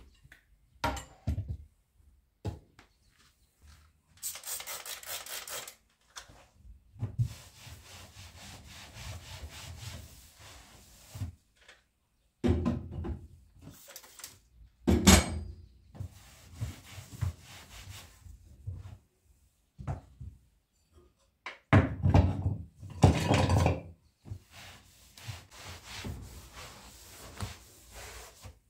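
Irregular rubbing and scraping on a wooden surface, broken by scattered knocks, the loudest a sharp knock about fifteen seconds in.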